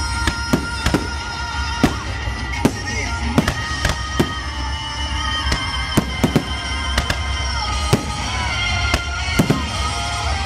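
Aerial firework shells bursting in an irregular string of sharp bangs, about one or two a second, with music playing throughout.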